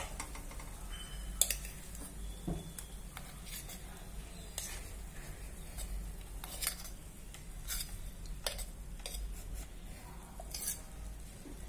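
A metal spoon clinking and scraping against a bowl and pan every second or two, as soft cream is scooped out and added to the pan.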